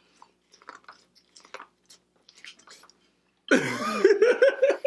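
Faint chewing and small mouth clicks of someone eating corn, then about three and a half seconds in a loud burst of a person's voice in quick repeated pulses.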